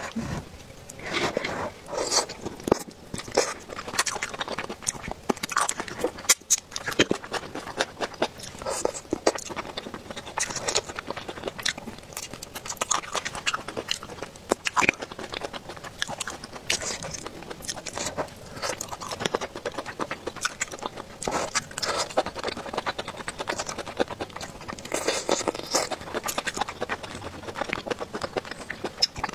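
Close-up chewing and crunching of fried crab sticks, with irregular crisp clicks and scrapes.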